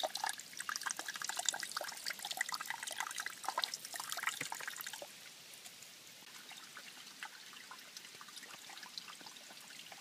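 A thin trickle of water running off a rock ledge and splattering onto a tablet's hard plastic case, a busy patter of small irregular drips and splashes. About halfway through the splashing drops away to a quieter, steadier trickle with only the odd drip.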